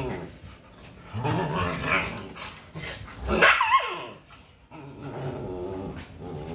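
Siberian huskies vocalizing while play-fighting: long, wavering growls and grumbles, with a sharp high yelp that slides down in pitch about three and a half seconds in.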